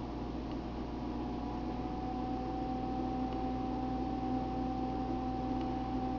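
Steady machine hum with a few constant pitches over an even hiss, like a running fan or appliance in a small room.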